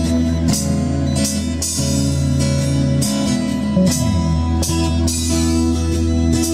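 A small live band playing an instrumental passage: acoustic guitar strumming chords over a bass guitar and an electronic drum kit keeping a steady beat with cymbal hits. The bass slides down to a lower note about four seconds in.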